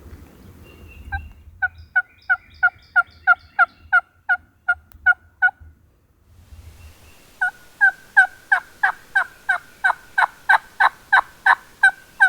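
A long, evenly paced run of turkey yelps, about four a second, each note breaking from a higher to a lower pitch; it stops briefly near the middle, then starts again louder.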